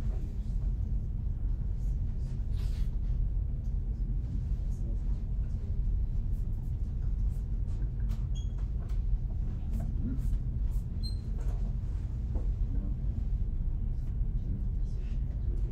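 Classroom background while students work: faint, indistinct chatter of students talking among themselves over a steady low rumble, with a few small clicks and knocks.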